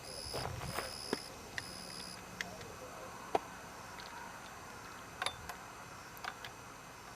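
Three high-pitched electronic beeps of uneven length in the first two seconds, then they stop; faint scattered clicks and taps follow.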